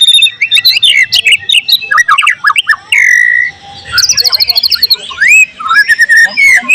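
White-rumped shama (murai batu) singing a fast, varied song of sharp whistles, slurred notes and rapid trills. About three seconds in it holds one steady whistled note, and soon after it gives a quick high rattling trill.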